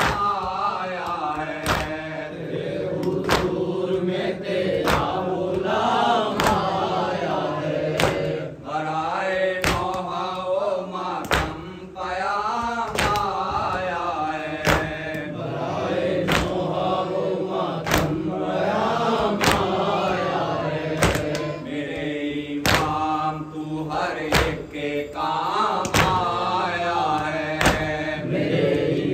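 Group of men chanting a Shia noha (lamentation) in unison, led by a reciter on a microphone, with sharp rhythmic strikes about once a second: matam, hands beating on chests in time with the chant.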